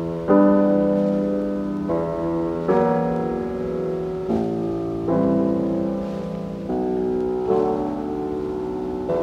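Slow solo piano music: chords struck at a slow, even pace, each one ringing and fading before the next.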